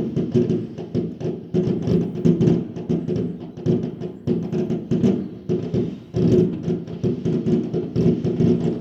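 Fireworks going off in a rapid, irregular string of bangs and pops, over a steady low hum.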